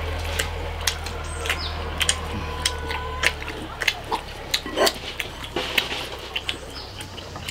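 Mukbang eating sounds: close-up chewing and mouth noises, with chopsticks clicking against a plate and bowl in many short, irregular ticks. A low steady hum sits underneath and fades out about halfway through.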